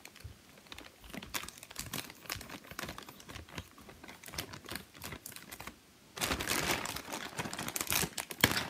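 Thin plastic toy bag crinkling as it is cut open with scissors, with many small clicks and snips. About six seconds in, louder, denser crinkling starts as the plastic is pulled apart.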